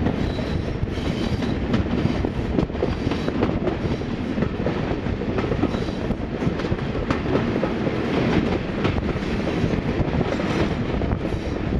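Diesel-hauled train running past, with class 47 and class 37 locomotives, a steady heavy rumble broken by many sharp clicks of wheels over the rail.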